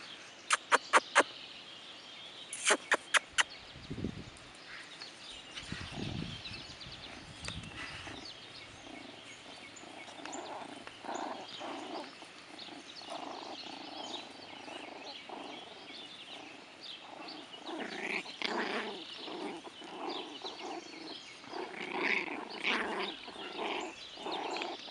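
Six-week-old shichon puppies wrestling, with many short pitched play calls from the puppies, coming thick from about ten seconds in. Two quick runs of sharp clicks in the first few seconds are the loudest sounds.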